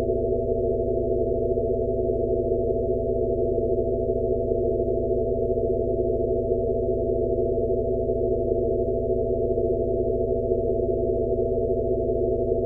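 Steady synthesized tone drone of a tinnitus-relief 'Rife frequency' sound-therapy track: a few held low tones over a soft band of hiss, with nothing high-pitched. A faint, slow pulse swells a little under once a second.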